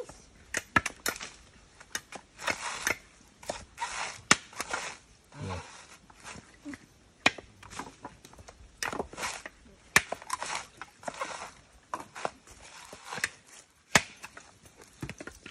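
Coconuts being husked by hand on a husking spike: irregular sharp cracks and short rasping tears as the fibrous husk is split and pried off the nut.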